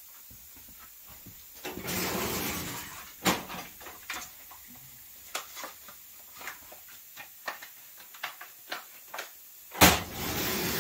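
Handling noises at a workbench: a rustling scrape of about a second and a half, then a string of light, irregular clicks and knocks, and a louder knock with a second scrape near the end.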